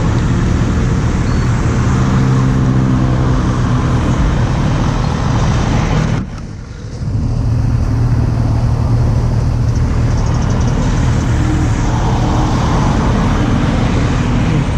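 Kawasaki Z800 motorcycle's inline-four engine running under way, heard over heavy wind buffeting on a helmet-mounted action camera. The sound dips briefly about six seconds in, then picks up again.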